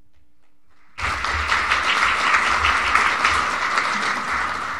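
Audience applauding, breaking out suddenly about a second in and easing slightly toward the end.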